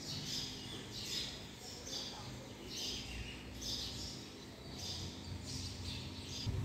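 A bird chirping over and over, a short high chirp roughly once a second, over a low steady hum.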